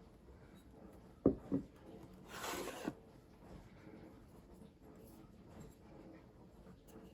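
Packaging being handled: two quick knocks a little over a second in, then a short scraping rub lasting about half a second that ends in a small click.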